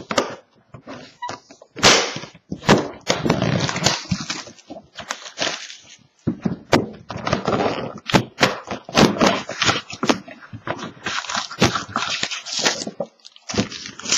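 Plastic wrapping on a sealed hockey card box crinkling and tearing in quick, irregular crackles as the box is opened.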